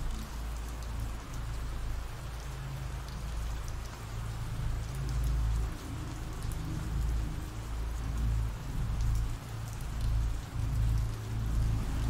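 Ambient rain sound effect: steady rain with an even hiss, over a low rumble that swells and eases.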